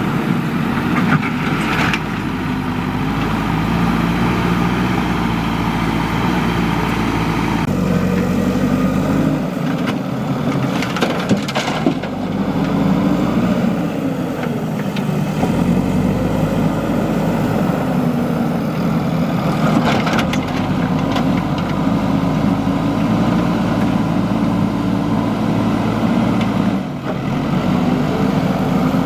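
Diesel engine of a JCB 3DX backhoe loader running under working load, its pitch rising and falling as it revs, with a few sharp knocks and clunks from the digging and loading.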